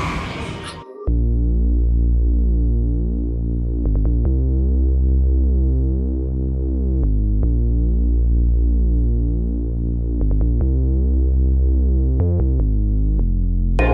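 A brief burst of crowd noise cuts off about a second in, and edited-in background music takes over: sustained keyboard chords over a deep, steady bass, sounding dull with the treble cut away.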